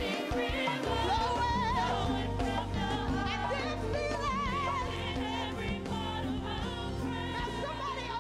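Live gospel worship song: women singing into microphones with wide vibrato over instrumental backing with a steady bass line.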